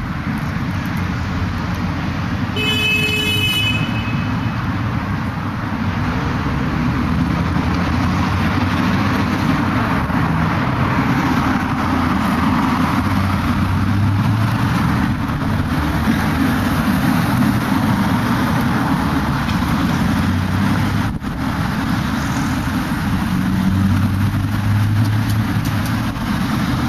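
Steady city street traffic noise with a heavy low rumble, and a single short honk lasting about a second, roughly three seconds in.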